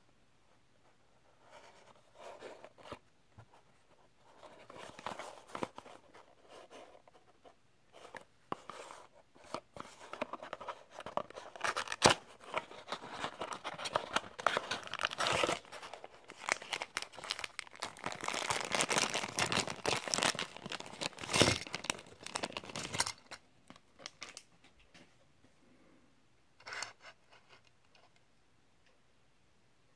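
A small cardboard toy-car box being handled and opened, with irregular rustling, scraping and crinkling of paper and plastic packaging as the die-cast car is taken out, busiest through the middle. One short light knock near the end.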